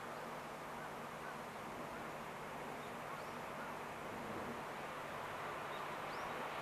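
Distant DF200 diesel-electric freight locomotive approaching: a faint, steady low engine hum under a haze of noise, growing slightly louder toward the end.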